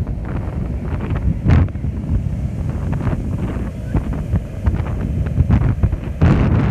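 Sea waves washing in, heavily overlaid by wind buffeting the microphone as a gusty low rumble. There are louder surges about a second and a half in and again near the end.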